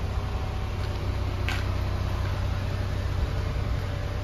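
A 2022 Toyota Tundra's 3.4-litre twin-turbo V6 idling with a steady low rumble, with one sharp click about a second and a half in.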